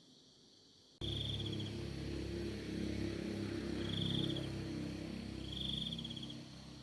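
Insects chirping in three short trilled bursts over a steady outdoor background; the sound cuts in suddenly about a second in.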